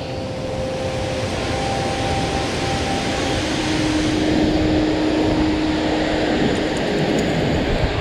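Waterfall rushing steadily close to its base: a loud, even wash of falling water with no breaks.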